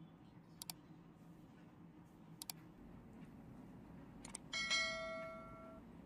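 A single bright, bell-like ding about four and a half seconds in that rings out and fades over a little more than a second. Two faint clicks come before it, over a low steady hum.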